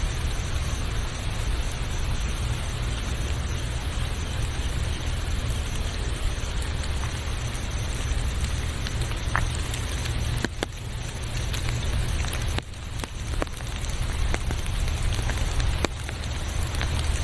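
Steady rain hiss with scattered sharp drop clicks over a low rumble; the level dips briefly twice.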